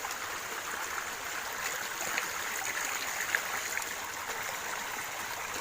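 Small river flowing steadily, an even rushing of water.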